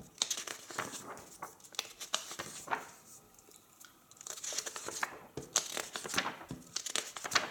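Pages of a large hardcover photo book being turned by hand: paper rustling and swishing in two bouts, with a short lull about three to four seconds in.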